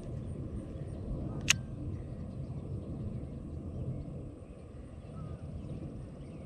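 Wind rumbling on the microphone outdoors, with one sharp click about a second and a half in.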